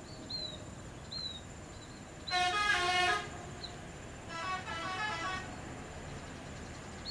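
Tour bus telolet horn, a multi-tone musical horn, sounding a short melodic blast about two seconds in. A second, fainter and quicker run of notes follows about a second later.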